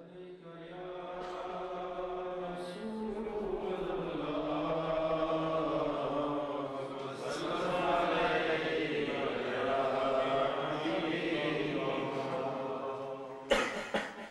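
A man's solo voice chanting a devotional naat without instruments, holding long notes that slide slowly in pitch. A sharp knock near the end, louder than the voice.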